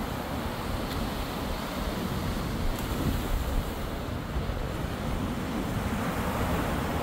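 Ocean surf washing onto the beach, with wind rumbling on the microphone.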